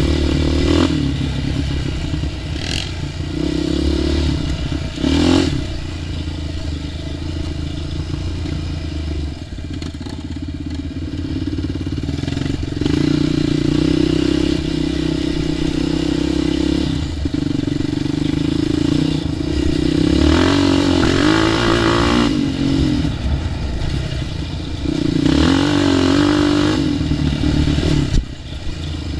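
ATV engine running as it is ridden along a trail, the throttle opened and eased off again and again, with one longer rise in pitch about two-thirds of the way through.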